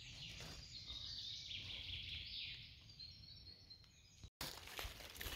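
Quiet forest ambience with faint birdsong. The sound cuts out for an instant about four seconds in, then dry leaf litter starts crunching underfoot near the end.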